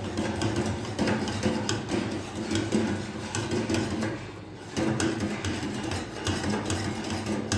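Spoon stirring tea in a cup: rapid, uneven clinking and clattering, with a brief pause about four seconds in.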